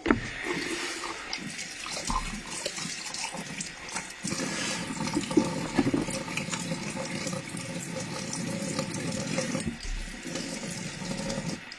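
Water running from a tap into a sink. It starts suddenly and runs steadily for about eleven seconds before it stops.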